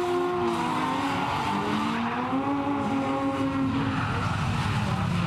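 Several drift cars running at high revs in a tandem slide, their engine notes overlapping and wavering up and down as the throttle is worked, over tyre squeal and skidding.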